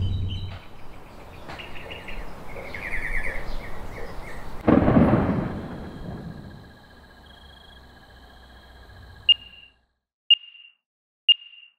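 Dramatic intro sound effects: a sudden low boom about five seconds in that fades away slowly, followed near the end by three short high beeps a second apart, ticking off a countdown.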